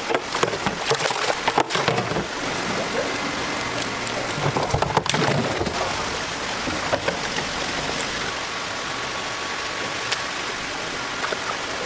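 Water splashing and bubbling in aerated live-fish holding tanks, a steady rain-like hiss, with scattered knocks and clatters in the first couple of seconds and again about five seconds in.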